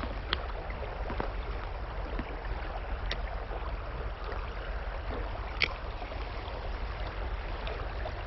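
River water rushing steadily, with three brief sharp clicks.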